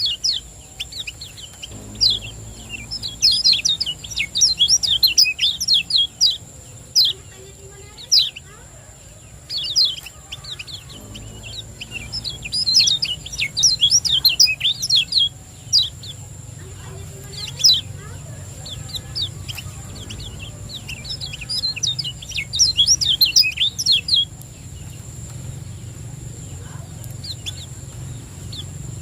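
Kecial kuning white-eye singing: bursts of rapid, high chirps (the 'ciak ciak jos' song), several bursts a few seconds long separated by short pauses, stopping about five seconds before the end. A steady low hum and a faint, thin high tone run underneath.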